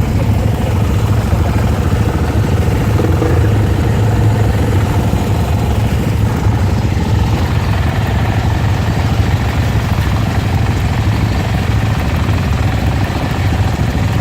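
A vehicle engine running steadily throughout, a constant low rumble under a noisy rush, with no change in speed.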